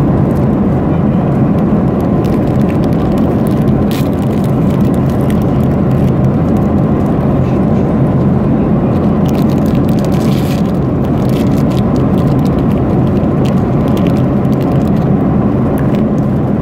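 Steady, loud airliner cabin noise, a low drone of engines and airflow that does not change. Light crinkling of foil wrapping comes through now and then, most of it around ten seconds in.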